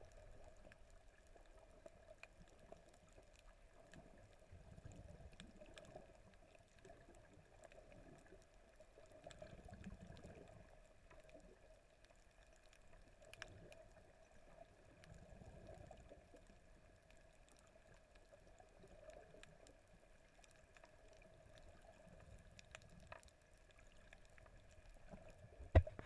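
Faint, muffled underwater sound picked up by a submerged camera: soft low water swishes every few seconds, scattered faint clicks and a steady faint hum, with one sharp thump near the end.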